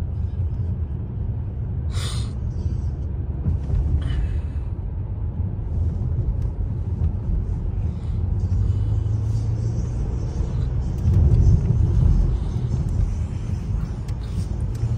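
Low road and engine rumble inside the cabin of a Mercedes-Benz A-Class driving at city speed, swelling heavier about eleven seconds in. Two brief hisses cut in about two and four seconds in.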